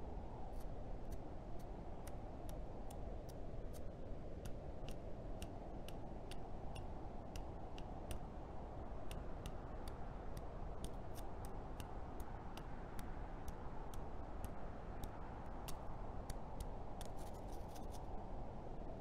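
Foley footsteps in snow, evenly paced at about two steps a second, each a short sharp crunch, with a quick flurry of steps near the end before they stop. A steady low background noise runs underneath.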